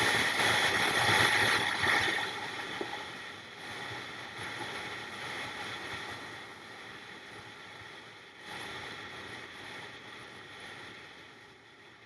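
Rushing wind and road noise from a moving motorcycle, loudest for the first two seconds and then fading gradually.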